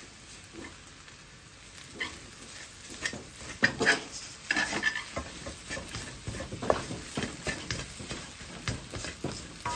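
Wooden spatula scraping and tossing fried rice around a wok: irregular scrapes and knocks against the pan over a light sizzle of frying.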